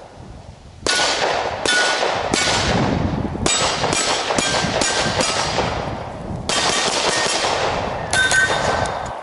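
A string of about ten pistol shots at steel plate targets, each hit answered by a ringing clang of the steel. The shots come in quick runs of two to four, about half a second apart, with short pauses between runs.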